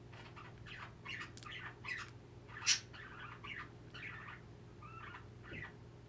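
Budgie chirping and chattering: a string of short chirps and warbles, with one louder, sharp chirp about halfway through, over a steady low hum.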